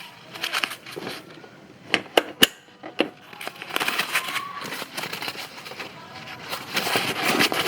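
Sounds of a motorbike being washed: scattered sharp clicks and knocks, then a steadier splashing hiss from about three and a half seconds in.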